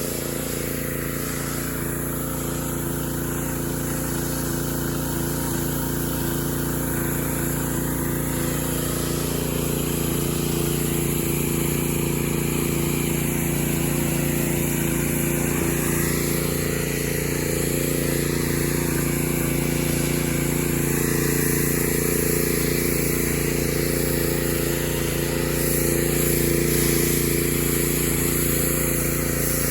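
Engine-driven pressure washer running steadily, its motor drone under the hiss of the water spray.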